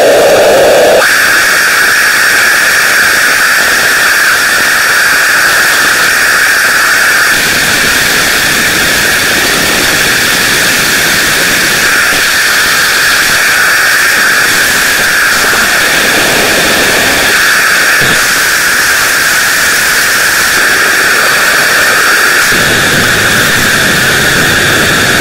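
Loud, steady noise with a strong high band running through it; its lower texture shifts about a second in and again near the end.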